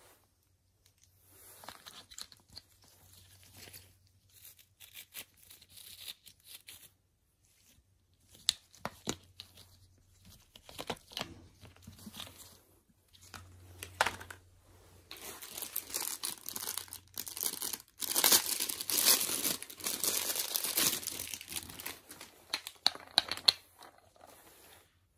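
Thin plastic packaging crinkling and tearing as it is opened, in irregular crackling bursts that grow much louder in the second half.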